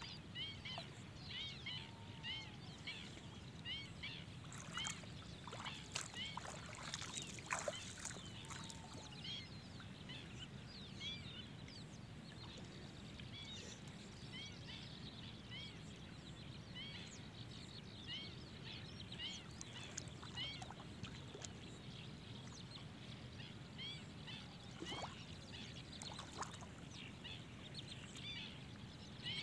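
Birds chirping over open water, short high calls repeated quickly and steadily, with a few soft water splashes from a person wading, bunched together some seconds in.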